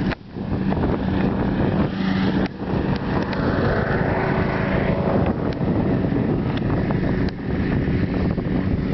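Wind rushing over the microphone of a camera carried on a moving bicycle, mixed with the rolling and rattling of the bike on pavement and a few sharp clicks.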